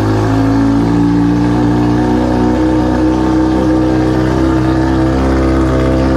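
2011 Kawasaki ZX-6R's inline-four engine idling steadily and loud with its muffler removed, running on the open exhaust with no can fitted.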